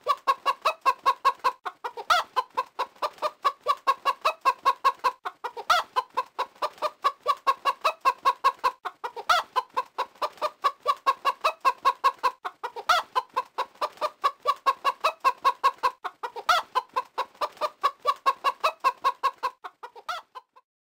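Hens clucking in a fast, even run of short clucks, about four or five a second, with a sharper louder cluck recurring about every three and a half seconds as the same pattern repeats.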